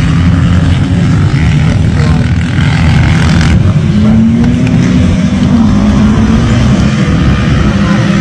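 Car engine revving loudly with a deep rumble; about halfway through a steady engine note comes in and holds as the car pulls away across loose sand.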